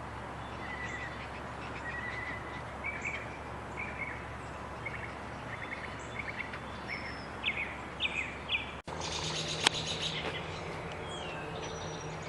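Small birds chirping in short repeated calls over a steady outdoor background. About nine seconds in the sound cuts off abruptly to a different background with a low steady hum and a sharp click.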